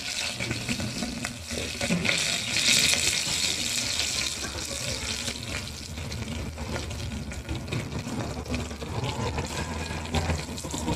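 Small onions, curry leaves and whole spices sizzling in hot coconut oil in an aluminium pressure cooker, a steady hiss that is loudest a couple of seconds in.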